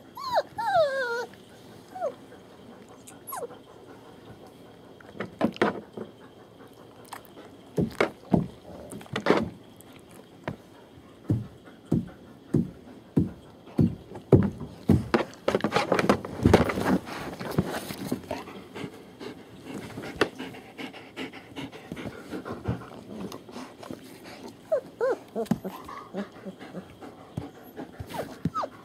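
Young German Shepherd puppies, a few weeks old, whimpering in short wavering cries near the start and again toward the end. In between comes a long run of irregular knocks and scuffling.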